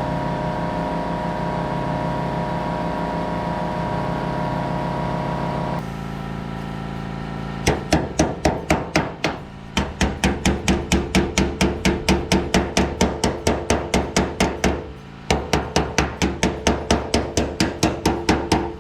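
A steady hum for about the first six seconds. Then a hammer strikes sheet steel in quick, even blows, about four a second, in three runs with short breaks: metal being hammered into shape for a rusted side-sill repair.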